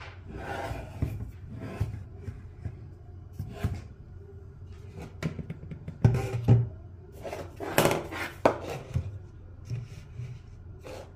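Irregular handling noises: scattered knocks and scraping, rubbing sounds, loudest in two short clusters about six and eight seconds in.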